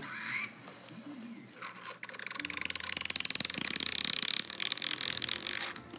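A metal quarter vibrating on a block of dry ice: a rapid, high-pitched chattering squeal that starts about two seconds in, runs for roughly three and a half seconds and cuts off suddenly. The coin buzzes because carbon dioxide gas sublimating beneath it keeps lifting it and letting it drop.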